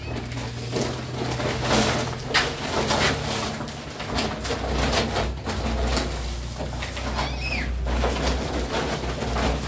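A plastic sack of powdered plaster rustling and crinkling as it is shaken and emptied onto a heap on the floor, the powder pouring out with a soft hiss. Birds call in the background, with a short chirp about seven seconds in.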